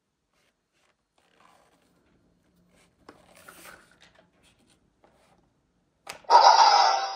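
Faint rubbing and handling of a plastic toy sword, then a click about six seconds in and a loud burst of its electronic sound effect near the end.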